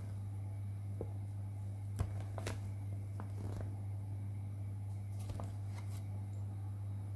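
A steady low hum, with a few faint paper rustles and small ticks as a printed instruction sheet is handled.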